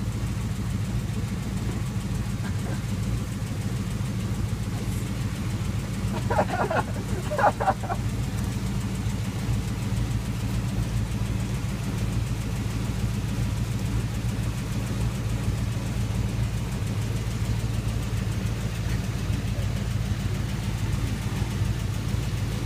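1954 Chevrolet 3100 pickup's inline-six engine idling steadily.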